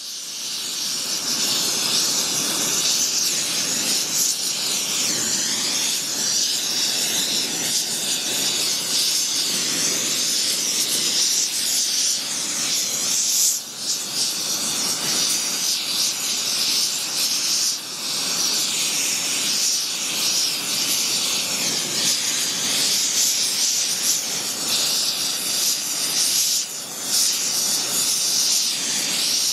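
Brazing torch flame hissing steadily as it heats heavy-wall copper pipe for a braze repair, with a few brief dips in level.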